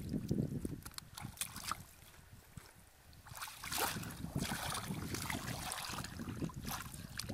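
Hands and wading feet splashing and sloshing in shallow muddy water in irregular bursts, with a brief lull about two seconds in.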